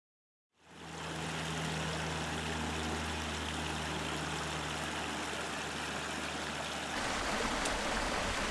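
Shallow creek water running over a small rocky cascade, fading in from silence about half a second in, with a steady low hum beneath it. About seven seconds in the hum drops away and the rush of water gets a little louder and fuller.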